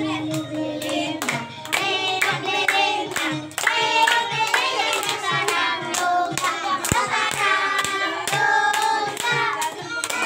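A group of children and adults singing a birthday song together while clapping along in time, about two claps a second.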